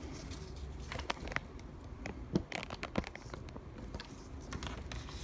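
Scattered light clicks, taps and rustling from hands handling a laptop, with several sharp clicks between about one and three seconds in, over a low steady hum.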